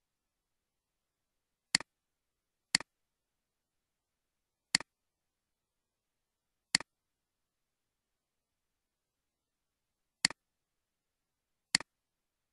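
Computer mouse clicking six times at uneven intervals, each a sharp double click of button press and release, with dead silence between.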